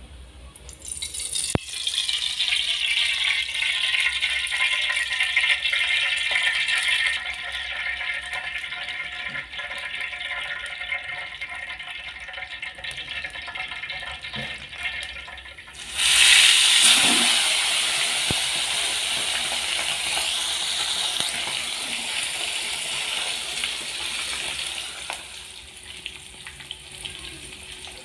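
Water running hard from a kitchen tap into a vessel or sink. It comes on about a second in, eases off after about seven seconds, and gushes again, louder, a little past halfway before easing off near the end.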